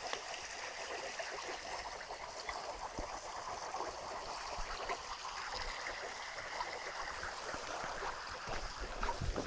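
Water running steadily along a concrete irrigation channel, with a few low thumps near the end.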